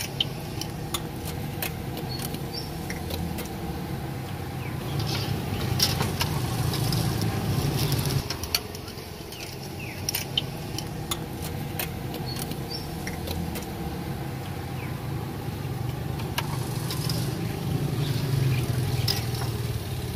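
Meatballs deep-frying in a pot of hot oil: a steady sizzle with scattered sharp pops and crackles, over a low rumble that swells twice.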